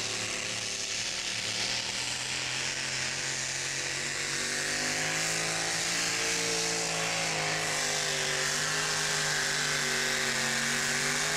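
Engine of a 6,200 lb two-wheel-drive pulling truck running hard at full throttle while it drags a weight-transfer sled, its pitch wavering a little as the load builds.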